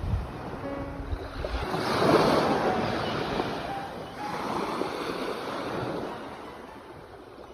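Ocean waves breaking and washing in, swelling in surges about every two and a half seconds, then fading away near the end.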